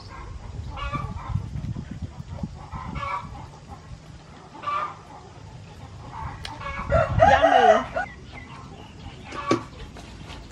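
Chickens clucking in short calls every second or two, and a rooster crowing loudly for about a second, some seven seconds in.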